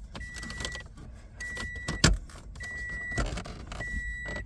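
2014 Toyota RAV4's warning chime beeping in a steady rhythm, four high tones about a second apart, over scattered plastic clicks of dash trim being handled, with one sharp snap about two seconds in.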